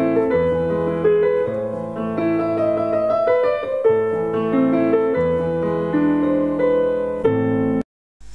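Intro music played on a piano-like keyboard: a melody over held chords, which cuts off suddenly near the end.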